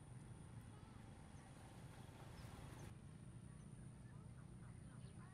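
Near silence: a faint steady low hum with a few faint scattered ticks, and a brief faint hiss about two to three seconds in.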